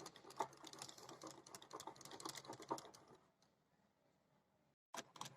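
Faint, rapid clicking and tapping of a utensil beating cake batter of butter, sugar, egg and vanilla against the bowl, stopping about three seconds in, with a few more clicks near the end.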